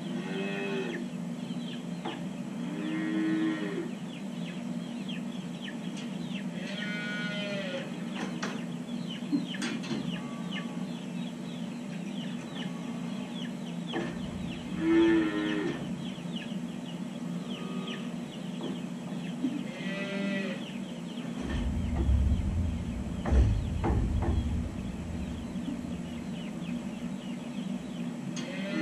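Dairy calves mooing and bawling, one call every few seconds, about eight in all, over a steady low hum. A low rumble with a few knocks comes about two thirds of the way through.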